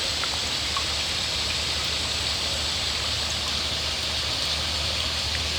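Waterfall: a steady rush of falling water with an even low rumble beneath it.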